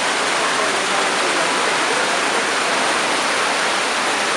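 Floodwater rushing in a loud, steady roar of water.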